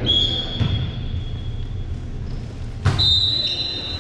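A sharp slap of a hand hitting a volleyball about three seconds in, during play on a hardwood gym floor. A high, steady tone sounds near the start and again for about a second after the hit.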